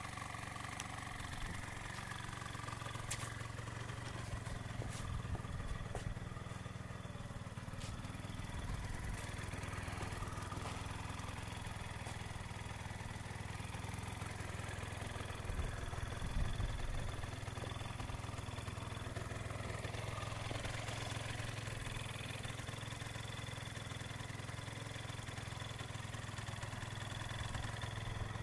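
Gilera Runner scooter engine idling through its stock exhaust, with one short blip of the throttle a little past halfway.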